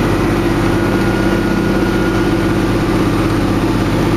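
John Deere tractor's diesel engine running steadily, heard from inside the cab.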